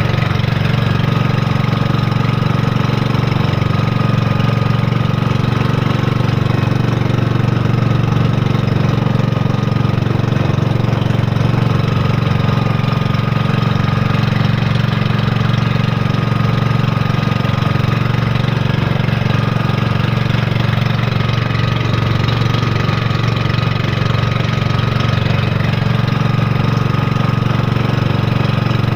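Engine of a motorized outrigger fishing boat running steadily at cruising speed, a constant loud low drone with no change in pace.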